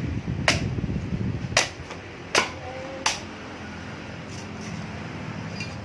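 Four sharp knocks on an aromatic coconut, spaced about a second apart, in the first half.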